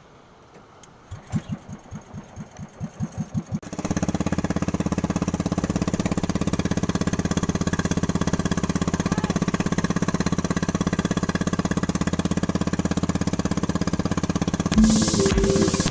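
Small boat engine being cranked: a run of slow chugs that speed up for about two and a half seconds, then it catches and runs steadily. Music comes in near the end.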